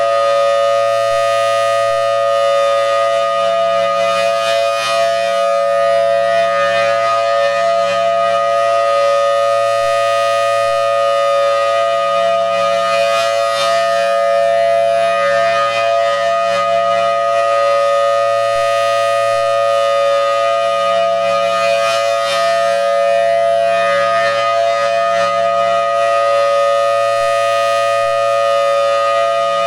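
Federal Signal Thunderbolt 1000T outdoor warning siren sounding its steady alert tone at full volume. The pitch holds level while the sound swells louder about every nine seconds as the rotating horn turns to face the listener.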